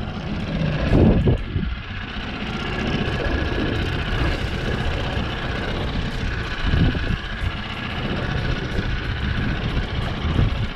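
Small outboard motor on an aluminium tinny running steadily at low speed, with wind on the microphone.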